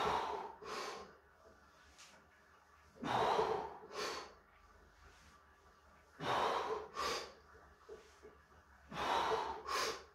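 A man breathing hard during barbell back squats with 100 kg: a loud, sharp breath followed by a shorter one, repeated four times about three seconds apart, once per rep.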